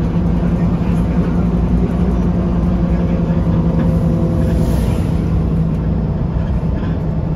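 Alexander Dennis Enviro300 bus's diesel engine idling with a steady low hum, heard from inside the passenger cabin.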